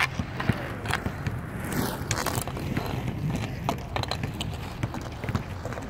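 Inline skate wheels rolling and scraping on an outdoor sport-court surface, with sharp clacks of a hockey stick on the ball or puck, the loudest right at the start.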